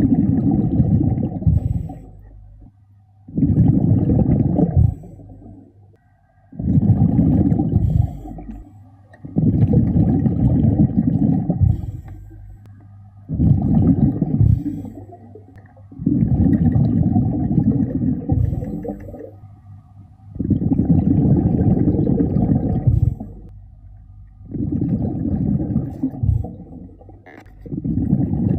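A diver breathing through a regulator underwater: a rush of exhaled bubbles gurgling past the microphone about every three to four seconds, each burst lasting around two seconds, with quieter gaps for the in-breaths.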